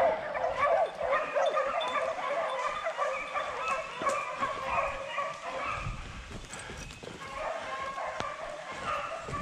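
A pack of beagles baying on a wild boar, many yelping voices overlapping without a break.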